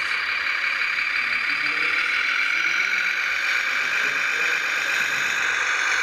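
Radio-controlled model tipper truck driving with a load on its bed, giving a steady engine-like whine whose pitch drifts slowly up and down.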